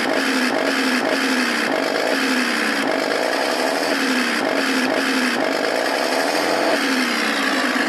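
Electronic sound module of a radio-controlled tank (TK60 class) playing a simulated engine through a small speaker, the pitch rising and falling over and over as the throttle is blipped and eased, with one longer rev near the end.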